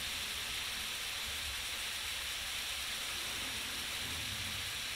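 Meat sizzling in fat in a cast-iron skillet: a steady, even frying hiss.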